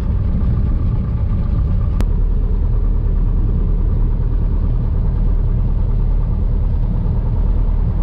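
Piper PA-28-140 Cherokee's four-cylinder engine running steadily, a loud even drone heard from inside the cabin. A single sharp click sounds about two seconds in.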